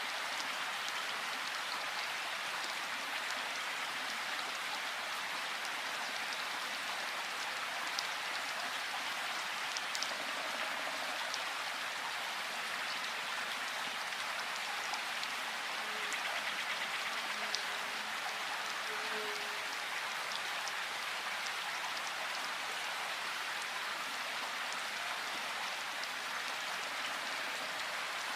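Steady rain falling, an even hiss with a few sharper drips standing out now and then.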